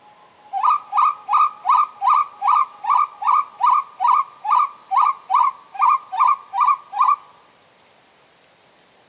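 Uru call lure (pio) imitating a spot-winged wood-quail: a run of about seventeen short, quickly rising whistled notes, two to three a second, which stops about seven seconds in.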